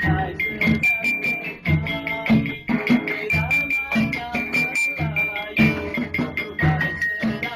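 Music with a steady beat of low drum strokes, rattling percussion and a high melody line.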